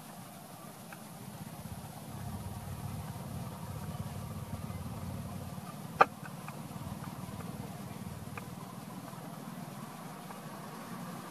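Steady low background rumble with one short, sharp sound about six seconds in, the loudest moment.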